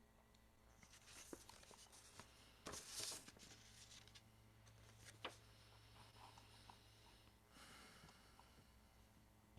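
Near silence: room tone with a steady low hum and a few faint clicks and rustles.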